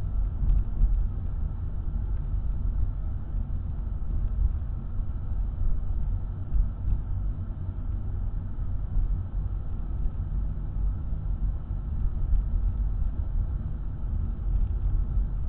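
Steady low rumble of a car's engine and tyres, heard from inside the cabin while driving at about 30 km/h.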